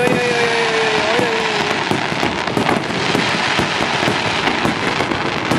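Dense barrage of aerial firework shells bursting in quick succession, with continuous crackling. A person's drawn-out voice sounds over it for the first second or so.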